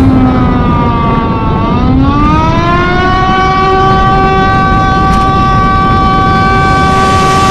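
Tsunami warning siren sounding. Its pitch falls for about a second and a half, rises again over about a second, then holds a steady wail, with a rough noise underneath.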